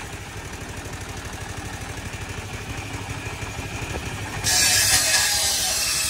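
A belt-driven circular table saw running free, its drive engine chugging with a quick even pulse. About four and a half seconds in, the blade bites into a wooden plank and a loud ripping, hissing cutting noise takes over.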